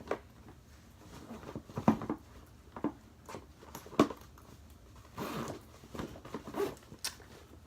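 Items being handled and packed into a bag: scattered knocks and rustles, with a sharp knock about four seconds in.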